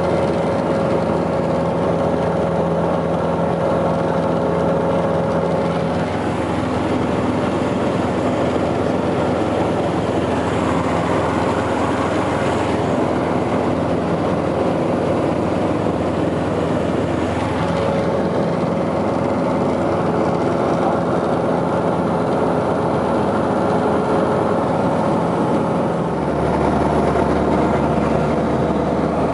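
Steady drone of a small airplane's engine and propeller heard from inside the cabin, a constant roar with held tones that shift in pitch a few times as the engine settings change.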